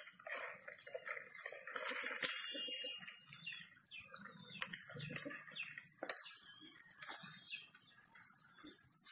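Small birds chirping repeatedly over a faint hiss of nethili (anchovies) frying in hot oil, with a few sharp clicks, the loudest about seven seconds in.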